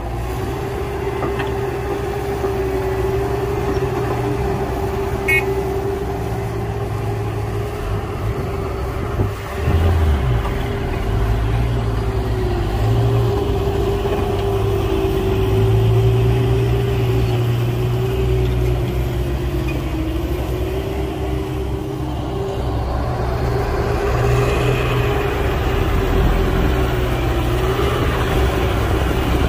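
Diesel engines of heavy construction machinery running steadily: a low rumble under a constant drone that wavers a little in pitch.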